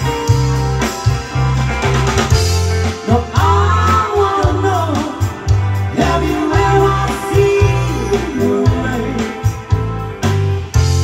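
Live band playing a song: women singing into microphones over electric guitar, bass guitar, a drum kit and keyboard, amplified through stage speakers, with a steady beat.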